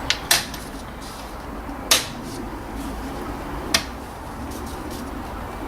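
The clips on a 2010 Honda Insight's air filter housing being unfastened by hand: four sharp snaps, two in quick succession at the start, then one about two seconds in and one near four seconds in.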